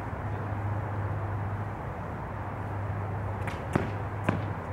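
A steady low hum of outdoor background noise, with two sharp snaps about half a second apart near the end.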